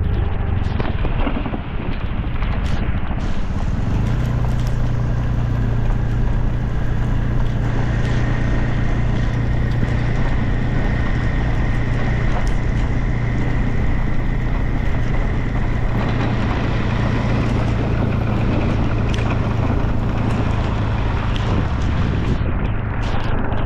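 Motorcycle engine running steadily at riding speed, its low hum firming up about four seconds in, under loud wind buffeting the microphone and rain.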